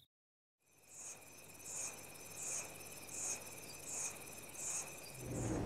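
Faint insect chirping starting about a second in: a short high chirp repeats evenly about every three-quarters of a second over a steady high buzz.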